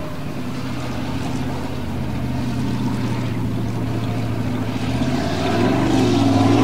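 Formula off-road buggy's engine running at a steady high pitch as it works up a gravel hillside, swelling louder in the last second or so.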